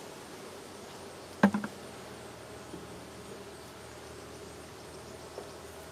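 Honeybees buzzing steadily around an opened hive, with one sharp knock about a second and a half in, followed quickly by two lighter ones.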